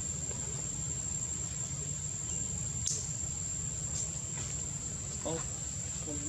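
A steady high-pitched insect drone with no break, over a low rumble, with a few faint clicks and a short low call near the end.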